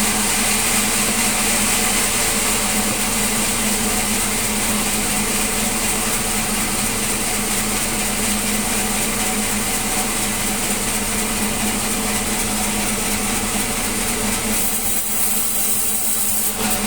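Sawmill machinery running steadily with a constant low hum and a broad hiss over it; the hiss thins out a couple of seconds before the end while the hum continues.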